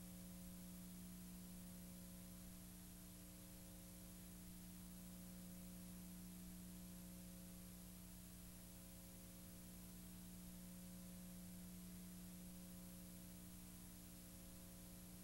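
Near silence: a faint, steady electrical hum over a little hiss, the empty soundtrack of a silent home movie transferred to video.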